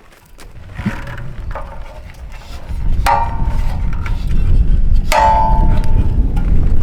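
Two ringing metallic clangs, one about three seconds in and one about five seconds in, each ringing on for over a second, with a couple of lighter knocks before them. Under them, wind buffeting the microphone rises to a loud rumble.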